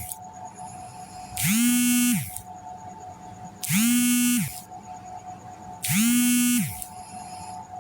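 Snoring: a buzzy, pitched snore about a second long, repeated three times in exactly the same shape about every two seconds, like a looped recording, over a steady faint hum.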